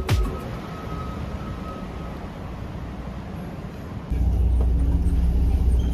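Low, steady vehicle rumble that gets noticeably louder and deeper about four seconds in.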